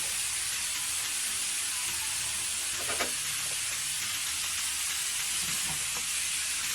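Food sizzling in a hot pan, a steady hiss, with a single knock about three seconds in.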